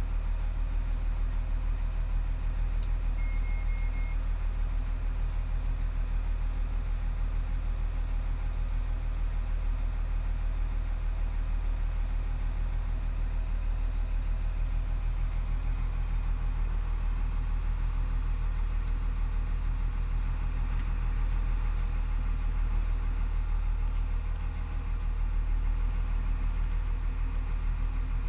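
Volvo L120F wheel loader's freshly overhauled D7E inline-six diesel idling steadily, heard from inside the cab. About three seconds in there is a short run of four electronic beeps from the instrument panel.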